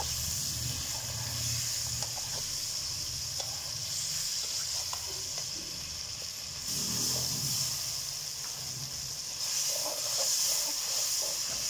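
Chicken pieces with sliced onion and green chillies sizzling as they fry in hot oil, a steady sizzle that grows louder near the end. A low rumble runs underneath in the first half.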